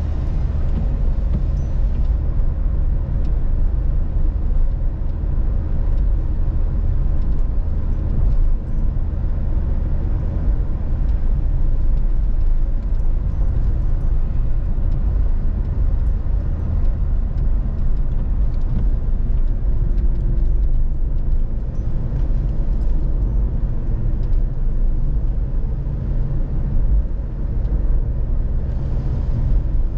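Steady engine and road rumble of a Škoda Octavia heard from inside the cabin while it drives along a winding road.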